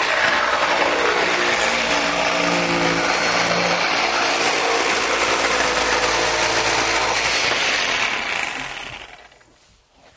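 Electric scroll saw running steadily, then winding down and dying away near the end.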